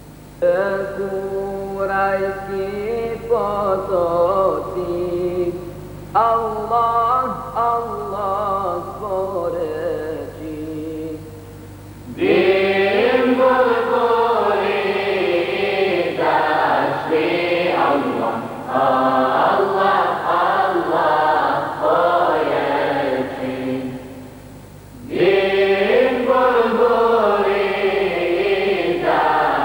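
A choir singing a Bosnian Islamic devotional hymn (ilahija) in phrases. It starts thinner, swells to a fuller, louder sound about twelve seconds in, breaks off briefly near the end and comes back in. A steady low hum runs underneath.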